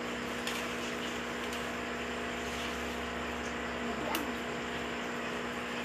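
Steady hum of an electric floor fan running, with a few light clicks from the tripod's phone holder being handled, the clearest about four seconds in.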